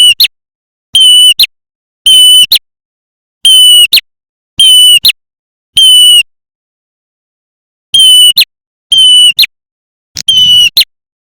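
Recorded prenjak bird call played as a hunting lure: a loud, steady high note lasting about half a second and ending in a short sharp chip, repeated roughly once a second, with a longer pause about two-thirds of the way through.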